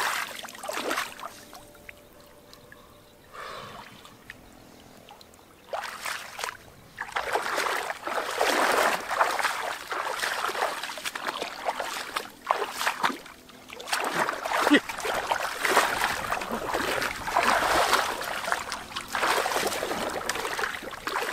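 Shallow water splashing and sloshing in irregular bursts, quiet for the first few seconds and then busy from about seven seconds in.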